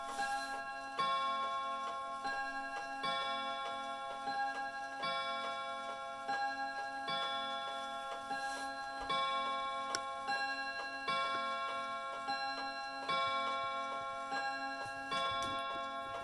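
Herschede bim-bam mantel clock's hammers striking its three chime rods, alternating bim-bam notes at about one strike a second. Each strike rings on and fades before the next.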